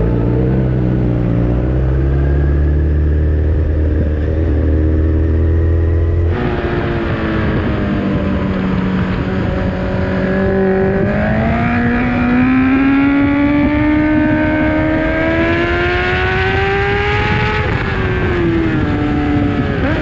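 Honda CBR1000RR Fireblade's inline-four through a Leo Vince aftermarket exhaust, heard raw from onboard: running at low, steady revs, then changing abruptly about six seconds in to a higher, harder-working sound. The revs climb steadily for several seconds, drop briefly near the end and start rising again.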